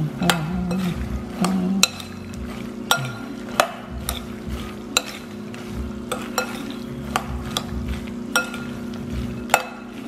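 A spoon stirring cooked peanuts in a glass bowl: the peanuts rattle and shift, with irregular sharp clicks of the spoon against the glass every half second to a second.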